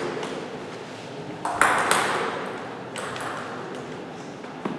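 Table tennis ball clicking against bats and the table: a quick cluster of clicks about one and a half seconds in, and a single click near the end.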